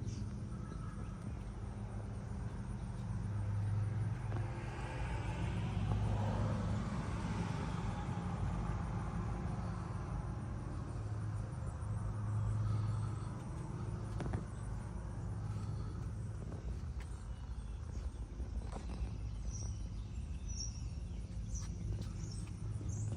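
A vehicle engine running steadily with a low hum, swelling louder for a few seconds early on and again about halfway through, with faint chirps of insects or birds near the end; it cuts off abruptly.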